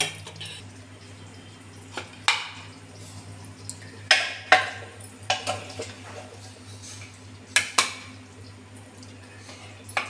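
Metal ladle knocking and scraping against a metal cooking pot and a plate while thick meat stew is served, in several scattered clinks, some in close pairs, over a steady low hum.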